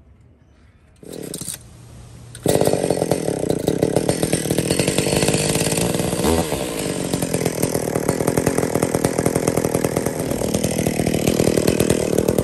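Chainsaw running steadily, its engine coming in abruptly about two and a half seconds in after a short quiet stretch.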